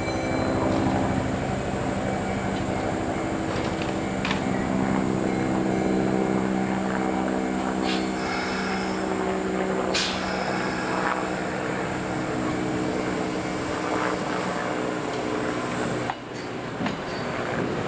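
Kintetsu 5200-series electric train standing at the platform with its on-board equipment humming steadily. A hiss of air comes about eight seconds in and a sharp clunk about two seconds later as it starts to pull out. The hum fades as the cars roll past near the end.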